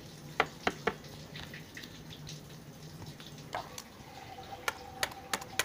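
Small plastic toy figures tapping and clicking on a wooden tabletop as they are moved by hand: a few scattered sharp clicks over a faint steady hum.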